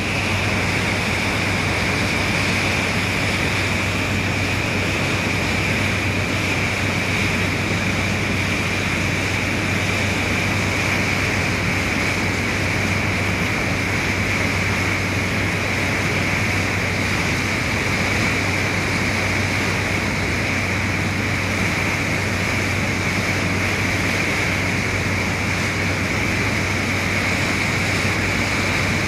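A high-speed passenger ferry's waterjet drives thrusting at speed: a steady rush of churning water with a constant low engine hum and a steady high whine underneath.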